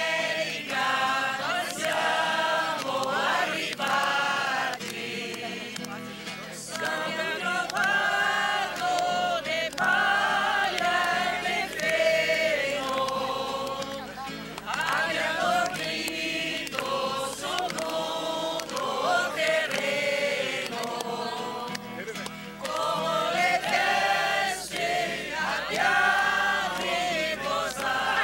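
A choir singing as background music, in sung phrases of a few seconds with short breaks between them.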